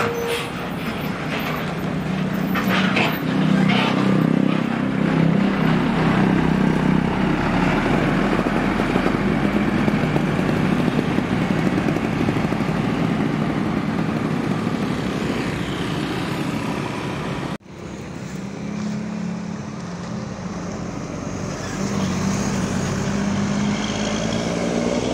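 Intercity coach diesel engine pulling away and driving off, a steady low drone with road noise. After a sudden cut about two-thirds of the way in, a second coach's engine rises in pitch as it accelerates near the end.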